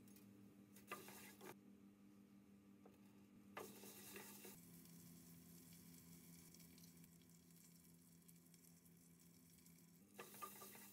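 Faint sizzling and stirring of orzo pasta toasting in a saucepan, with three brief louder bursts as the pan is stirred and chopped onion and garlic go in. A steady low hum runs underneath.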